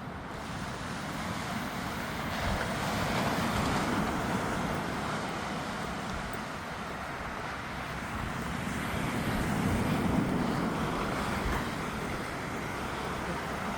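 Sea surf washing on a beach with wind buffeting the microphone, swelling louder twice as waves come in.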